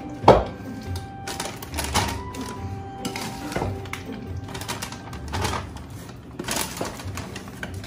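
A wooden spoon stirring and scraping chocolate-coated cereal in a mixing bowl, with a sharp knock just after the start and further knocks and scrapes every second or two. Background music plays underneath.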